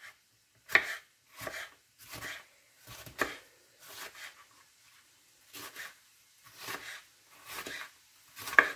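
Chef's knife dicing a red bell pepper on a bamboo cutting board: an even run of cuts, each a short slice ending in a knock of the blade on the wood, a little more than one a second.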